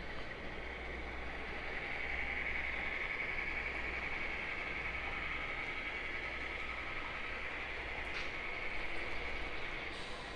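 HO scale model train running on the layout track, a steady rolling sound with a high whine that grows a little louder about two seconds in.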